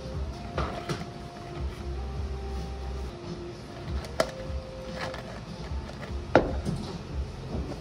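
Tongs putting lime slices into a plastic cup packed with ice: a few sharp clicks and clinks of tongs and ice against the cup, the loudest about six seconds in.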